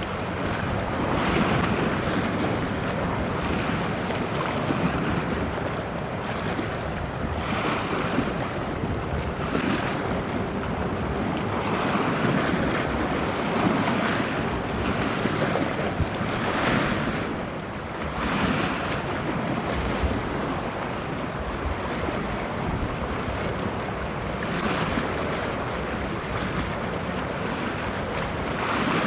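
Wind blowing on the microphone over water washing against the shore, swelling and easing every couple of seconds.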